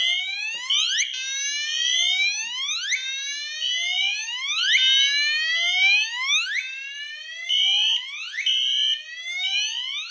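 Fire alarm notification appliances sounding together: a Gentex Commander 3 horn-strobe on its whoop tone, overlapping rising sweeps about once a second, and a second horn beeping in the temporal-three pattern (three short high beeps, then a pause). The system is in alarm after the disconnect key switch is turned back to normal.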